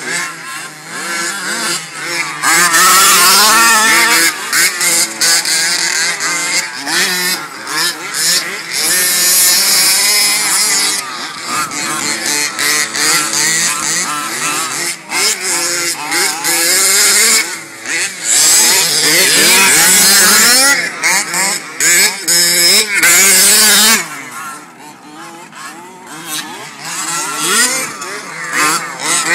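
Small two-stroke engine of a 1/5-scale gas RC buggy revving up and down as it is driven around a dirt track, its pitch rising and falling constantly with the throttle. It drops quieter for a couple of seconds near the end.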